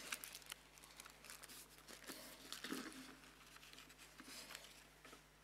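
Faint paper rustling with small handling clicks at a lectern microphone: sheets being leafed through.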